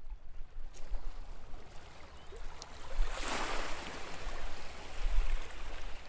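Harbour water lapping and splashing, with a low rumble running underneath; a brief louder rush of water about three seconds in.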